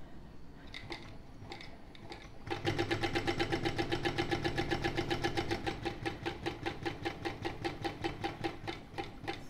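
ProSew 1933B industrial walking foot sewing machine stitching zipper tape to a bag panel, its needle and walking feed ticking evenly at about seven stitches a second over a low motor hum. The stitching starts about two and a half seconds in, after a few light clicks, and slows a little near the end.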